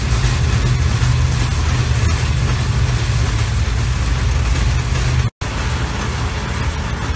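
Steel wheels of a pedal rail bike rolling along the rails through a tunnel: a steady low rumble with hiss. The sound drops out for an instant about five seconds in.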